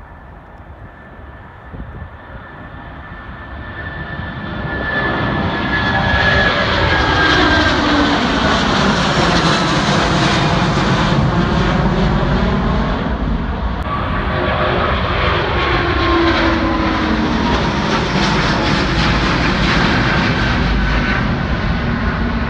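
Twin-engine jet airliner at take-off power climbing out overhead. The engine noise builds over the first few seconds and then stays loud, with a high whine that slowly falls in pitch.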